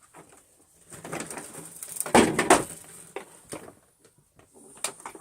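Irregular knocks and bumps as upright vacuum cleaners are moved about by hand, with a louder clatter about two seconds in; no motor is running.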